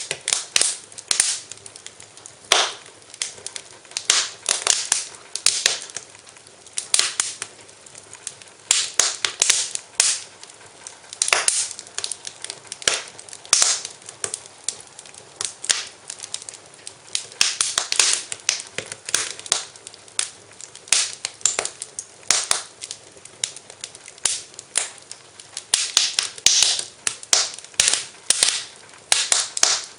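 Fire in a fireplace crackling, with irregular sharp pops and snaps coming in clusters over a faint hiss.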